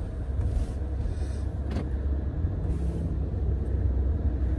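Steady low rumble of a taxi's engine and road noise heard from inside the car's cabin, with one faint click about two seconds in.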